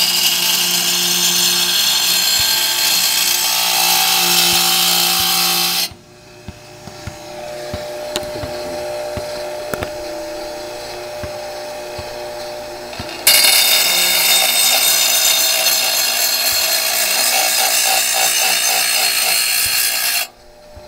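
Half-horsepower grinder sharpening a steel lawn mower blade: a loud grinding hiss for about six seconds, then the motor running free with a steady hum and light clicks for about seven seconds, then grinding again for about seven seconds until the blade is lifted off just before the end.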